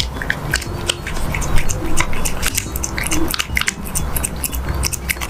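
A cat licking yogurt from a cup and its peeled-back lid: quick wet licking clicks, several a second.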